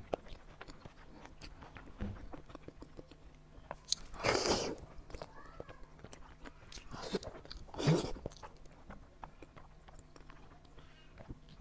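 Close-miked eating of a saucy piece of meat held in the fingers: wet lip smacks and chewing clicks throughout. Three louder sucking noises come as the lips work at the meat, a long one about four seconds in and two shorter ones around seven and eight seconds.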